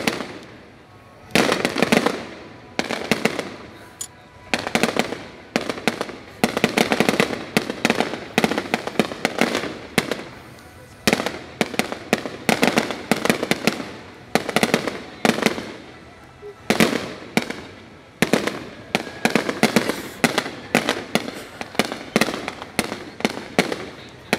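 Fireworks going off in rapid volleys: clusters of sharp bangs and crackling, a new cluster about every one to two seconds, each dying away before the next.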